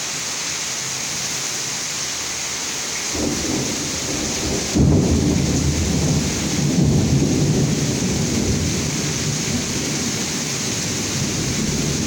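Heavy rain pouring down in a thunderstorm, a steady hiss. About three seconds in, a low rumble of thunder starts and swells suddenly about five seconds in, rolling on to the end.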